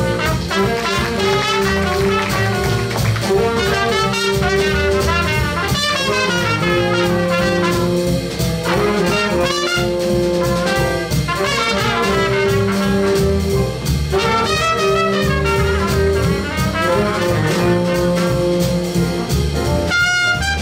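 Jazz big band playing: the horn section holds repeated background chords in phrases while a solo horn, most likely trumpet, plays a busy line above, over upright bass and the rest of the rhythm section.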